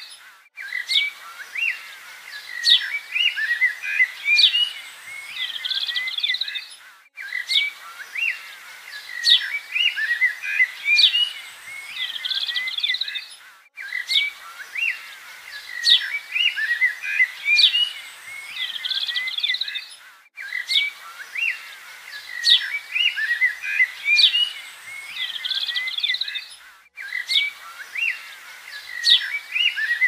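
Songbirds chirping and whistling in a busy chorus. The same stretch of about six and a half seconds repeats over and over, with a brief dropout between repeats: a looped birdsong track.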